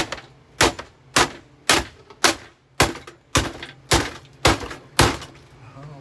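Hammer blows on a Kenmore canister vacuum cleaner: ten sharp hits at an even pace of about two a second.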